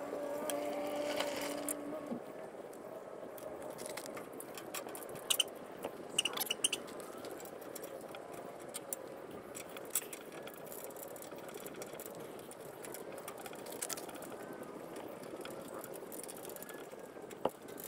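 A screwdriver making small metallic clicks and taps as it turns the screws of a headlight retaining rim, over faint outdoor background noise. A faint steady hum is heard at first and stops about two seconds in.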